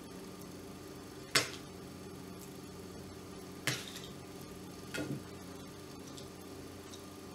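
Small clicks and knocks of the hand blender's plastic housing, switch and wires being handled on a table: three separate sharp knocks, the first about a second and a half in, over a faint steady hum.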